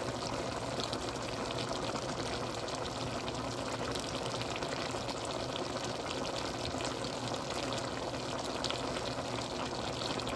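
Pork pieces cooking in soy sauce and their own released juices in a pan, a steady bubbling sizzle with many small pops.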